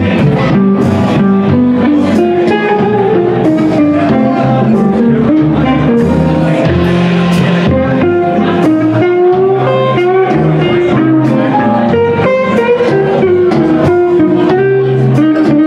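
Live blues band playing an instrumental passage: an electric guitar lead line over bass, keyboard and drums, with steady cymbal strikes.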